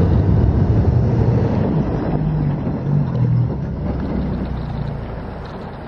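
4x4 ute driven hard through a creek crossing: water splashing and spraying over the vehicle while the engine revs, loudest at the start and easing as it climbs out of the water. The engine picks up again twice in the middle.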